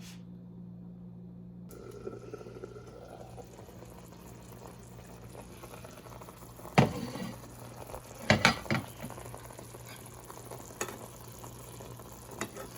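Chicken simmering in an orange juice marinade in a covered pan on the stove: a steady bubbling sizzle over a low hum, with a sharp clink about seven seconds in and a few more about a second and a half later.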